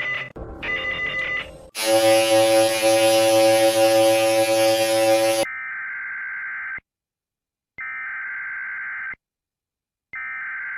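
Emergency Alert System broadcast tones: a short phone-ring-like tone pattern, then a loud, harsh multi-tone sound for about four seconds, then three screeching data bursts about a second long and a second apart, the SAME header that opens an EAS alert.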